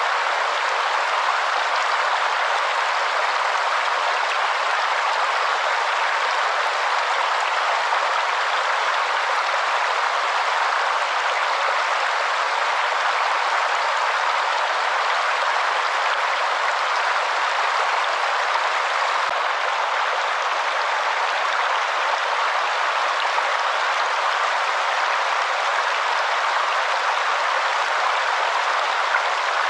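Waterfall: a steady, even rush of falling water with no breaks, its sound weighted to the middle and upper range with little deep rumble.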